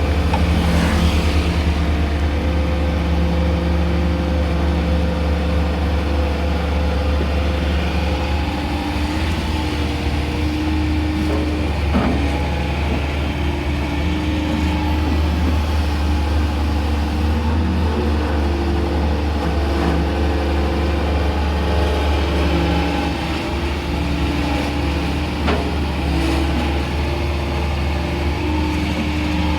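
A hydraulic excavator's diesel engine running steadily with a deep hum. A couple of short knocks come through, one near the middle and one near the end.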